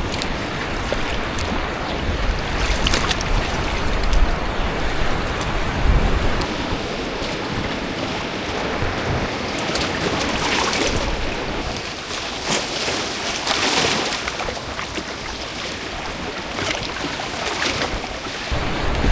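Rough sea in a storm: a steady rush of waves and wind, with louder splashes of water several times. Wind buffets the microphone with a low rumble in the first few seconds.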